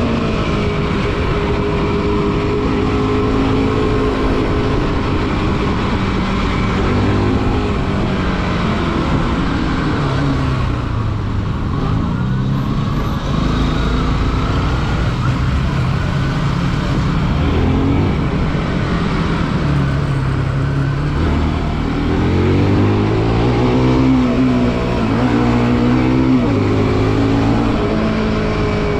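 Bajaj Pulsar NS200's single-cylinder engine running under way on the road. The engine pitch sinks as the throttle is eased off around ten seconds in, then climbs and drops several times as the rider revs through the gears near the end.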